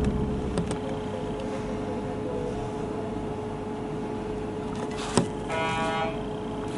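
Steady hum inside an electric express train car standing at a platform, with one steady mid-pitched tone. About five seconds in comes a single knock, then a short buzzing tone of about half a second.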